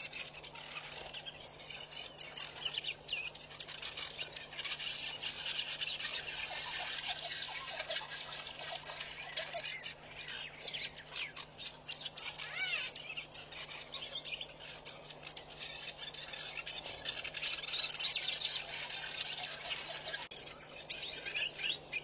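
Many birds chirping and calling over one another in a dense, busy chorus, with insect sounds mixed in, over a faint steady low hum.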